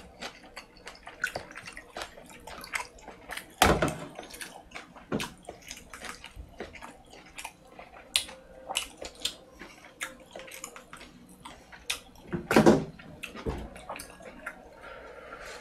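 Close-miked eating sounds: wet chewing smacks and clicks of a man eating spicy instant noodles with seaweed, with two louder thumps about 4 and 12.5 seconds in. Near the end he tips the bowl to his mouth and slurps noodles and broth, a wet hissing slurp.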